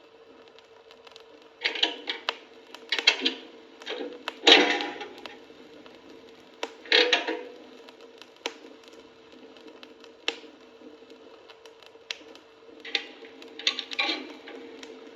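Clunks and clicking of a coin-operated café machine's mechanism, in short bursts separated by pauses of a second or more, over a faint steady hum.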